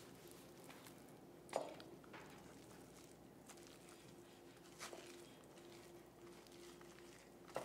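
Faint scraping and a few soft knocks of a metal spoon scooping cooked spaghetti squash strands out of the shell into a bowl, the clearest knock about one and a half seconds in, over a low steady hum.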